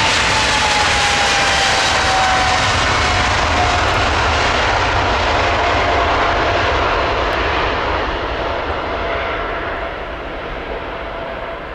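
Boeing 777's twin jet engines at takeoff thrust during the takeoff roll: a loud, steady rush of engine noise with a whine that slowly falls in pitch. Over the last few seconds, as the airliner rotates and lifts off, the sound grows quieter and duller as it pulls away.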